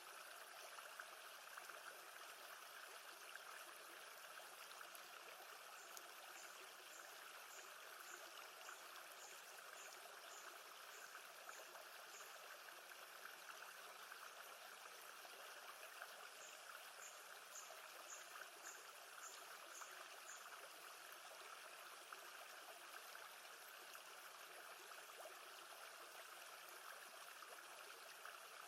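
Faint, steady sound of lake water moving and trickling. Two runs of high, evenly spaced chirps come in, about two a second: one starting about six seconds in, the other about sixteen seconds in.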